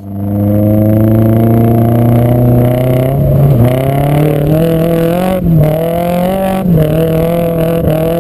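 Turbocharged SR20DET four-cylinder of a Nissan 240SX (S14) running hard at high revs. The pitch climbs slowly, with four short dips in revs.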